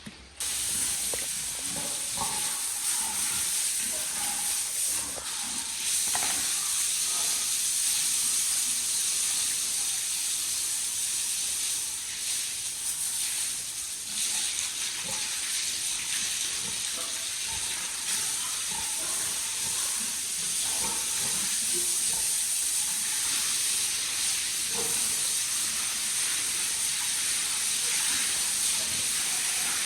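Hard spray of water hissing steadily, as when washing down a pig pen; it starts abruptly just after the beginning.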